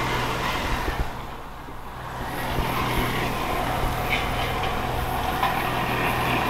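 A piece of metal dragged across gravel behind a tractor, scraping and grating continuously, with the tractor's engine hum underneath.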